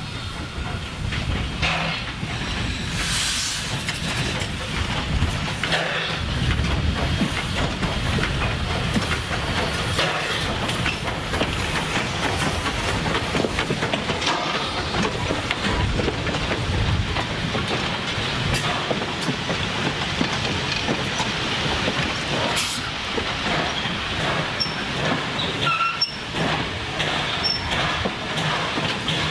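A small 0-4-0 steam locomotive running past with steam hissing, followed by its train of passenger cars rolling by, their wheels clicking over the rail joints.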